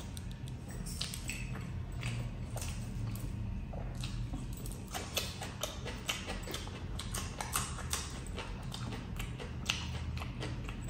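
Close-miked chewing and wet lip smacking of a person eating rice and curry, with many short irregular mouth clicks and crunches over a low steady hum.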